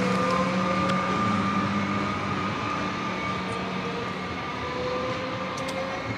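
Comeng electric suburban train pulling away and running off into the distance, its motor whine rising in pitch as it gathers speed while the whole sound slowly fades.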